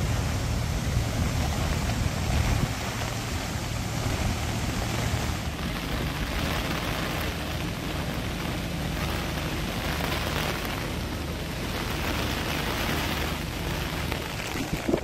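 Wind buffeting the microphone, a low rumble under a steady rush of rain and floodwater, swelling in gusts through the middle.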